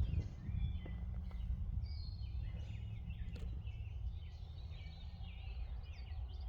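Several songbirds chirping and trilling in short phrases over a steady low rumble.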